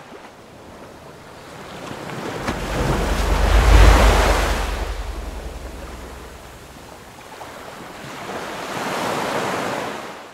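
Ocean surf: a wave surges in and breaks with a deep rumble, loudest about four seconds in, then washes back, and a second, smaller wave swells near the end.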